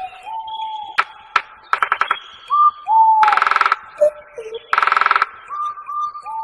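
Bird calls: short clear whistled notes, some sliding down in pitch, mixed with two or three harsh rattling calls about half a second long and a few sharp clicks.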